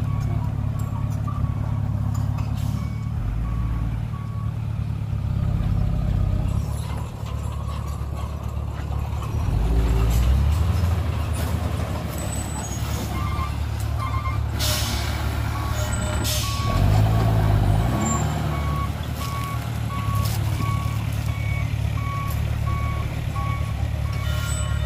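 Hyundai dump truck's diesel engine running as the truck reverses, revving up several times, while its reversing alarm beeps steadily at a little under two beeps a second. About two-thirds of the way through come two short hisses of air from the air brakes.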